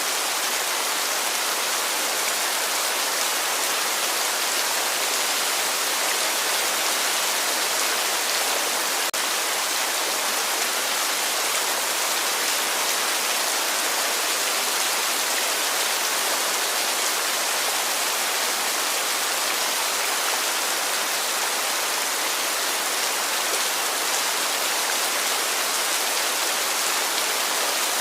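Heavy rain falling steadily: a dense, even hiss of rainfall with no let-up.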